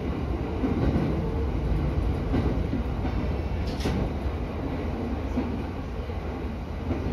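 Electric commuter train running along the track, heard from inside the driver's cab: a steady low rumble of wheels and motors, with one brief higher-pitched sound just under four seconds in.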